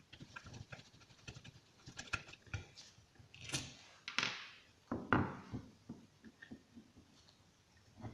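Scattered small clicks and taps of hand work on a distributor: a screwdriver backing out the ignition coil's screws, and the loose screws set down on a wooden tabletop. A few louder taps come about halfway through.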